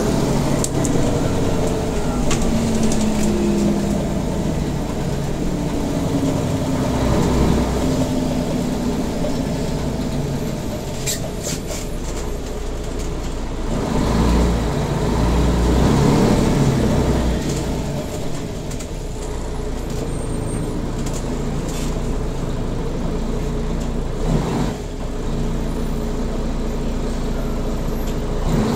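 Mercedes-Benz Citaro G articulated city bus underway, heard from on board: steady engine, drivetrain and road noise, with the engine note rising and falling as the bus changes speed and growing louder about halfway through.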